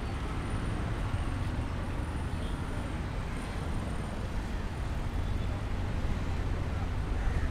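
Street traffic noise: a steady rumble of passing motor vehicles, among them three-wheeled auto-rickshaws (tuk-tuks).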